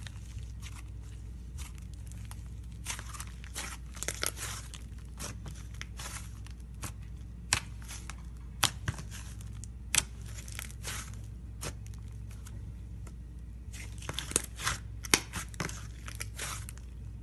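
Slime being squeezed, stretched and poked by hand, giving irregular sharp clicks, pops and crackles, thicker in two stretches, over a low steady hum.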